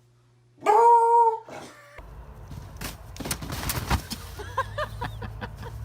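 An animal's loud drawn-out cry, held on one steady pitch for under a second, with a shorter fainter cry just after. A noisier stretch follows with clatter and a few short squeaks.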